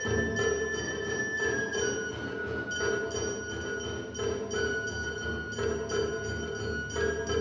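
Japanese festival hayashi: a shinobue bamboo flute playing long held notes, stepping down and then back up, over a steady quick beat of taiko drums.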